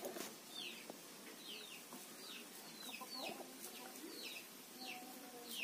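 Village chickens peeping and clucking: a run of short, high, falling peeps about two a second, with a few soft, low clucks.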